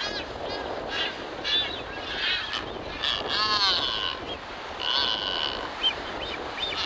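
Blue-footed boobies calling during a courtship display: a run of short whistles and honks, one longer falling call about midway, over a steady hiss of wind.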